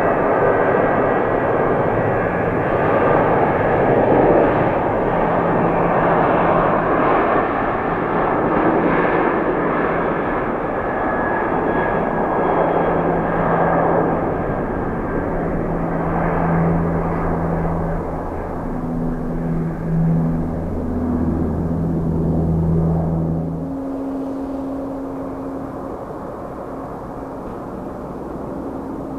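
Jet engines of a Skymark Airlines Boeing 737-800 running at high power as it rolls along the runway, a loud rushing noise with a steady low drone underneath. About 24 seconds in the noise falls away to a quieter hum.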